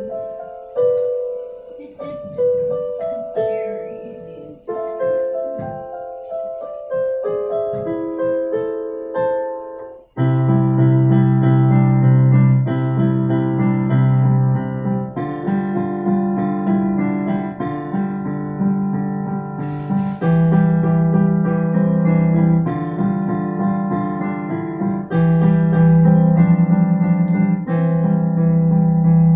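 Background piano music. About a third of the way in it changes abruptly to a louder passage with sustained low notes under the melody.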